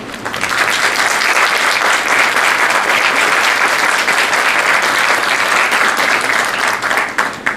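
Audience applauding with many hands clapping, swelling up within the first half second and stopping sharply near the end.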